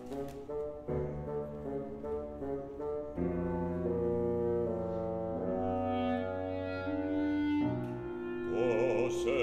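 Woodwind ensemble of clarinet, oboe and bassoon playing sustained chords over a low bass line, the harmony shifting about once a second. Near the end a singer with wide operatic vibrato comes in.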